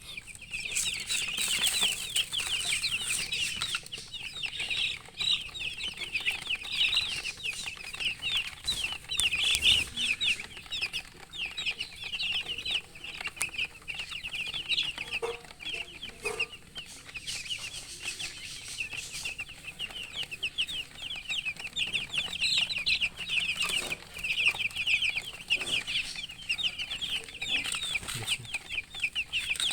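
A group of chicks peeping, many short, high, downward-sliding chirps overlapping almost without pause, with a few soft knocks in between.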